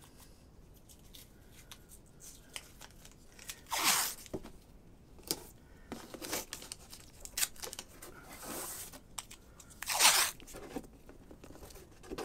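White tape being ripped off its roll in three short pulls, about four seconds in, a softer longer one around eight seconds, and the loudest about ten seconds in, with light clicks and rubbing as the strips are pressed down along the edges of watercolour paper on a board.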